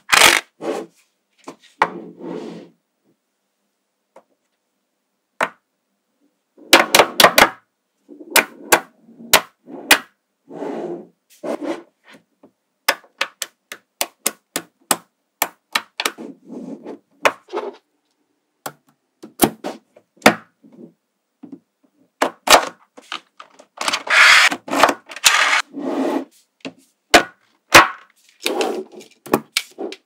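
Small magnetic balls clicking and clattering as hands snap and press rows and slabs of them together: quick sharp clicks and short rattling bursts, with a pause of a few seconds about three seconds in.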